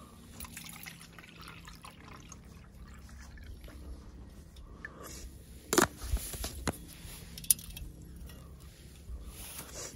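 Liquid poured from an insulated bottle into a camp mug, followed by a few sharp knocks and clinks as the bottle and mug are handled, the loudest at about six seconds.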